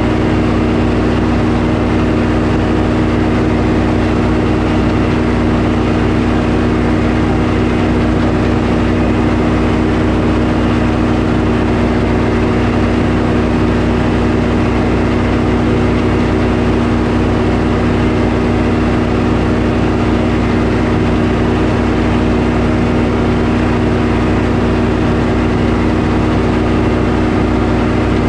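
Sawmill engine running steadily and loudly at an even speed, with no change in pitch or level.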